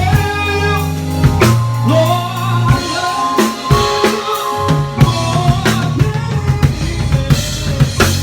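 Live gospel band playing an instrumental passage: electric bass holding low notes under keyboard chords, with a drum kit hitting kick, snare and rimshots throughout.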